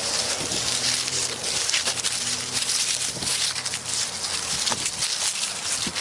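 Dry grass and fallen leaves rustling and crackling under a person's footsteps and a puppy's paws. A faint low steady hum runs underneath from about half a second to four and a half seconds in.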